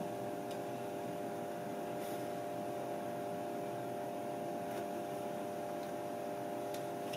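A steady hum of several even tones, with a few faint clicks and taps as a butternut squash is pressed onto the tailstock centre of a milling machine's fourth axis and the tailstock is fixed.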